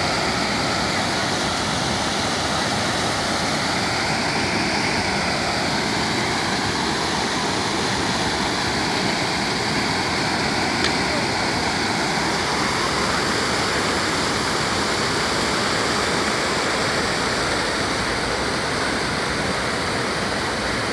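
Water spilling in a sheet over the rim of a large stone fountain basin and splashing into the pool below: a steady rushing splash.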